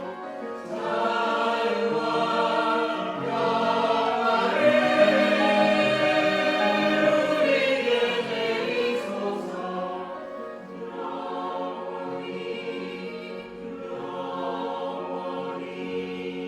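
Church choir singing an anthem in sustained chords, swelling loudest in the middle, then dropping to softer held chords for the last several seconds.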